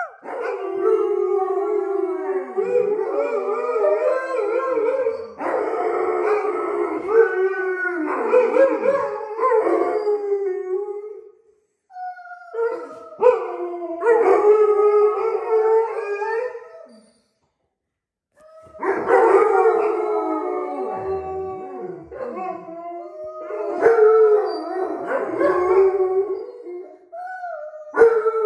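Several Alaskan malamutes howling together, long wavering howls overlapping one another. The howling comes in long bouts, broken twice by short silences.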